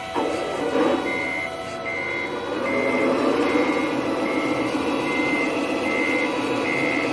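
Reversing beeper of a radio-controlled model truck sounding while it backs up: a steady high beep repeating just over once a second, over a continuous mechanical drone from the truck.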